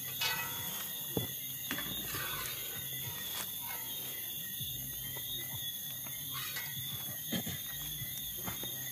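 Night insects chirring steadily in a high, unbroken chorus, with a few short light knocks and clicks over it.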